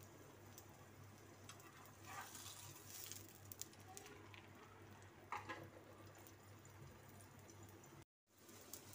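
Near silence: a faint steady low hum, with a few soft scrapes and taps of a metal spatula against an iron tawa as a paratha is turned. The sound cuts out briefly near the end.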